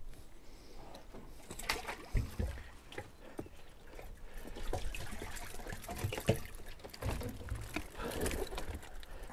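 Irregular clicks and rattles of a metal-clip fish stringer being handled and lifted, with low rumbling bumps of wind on the microphone.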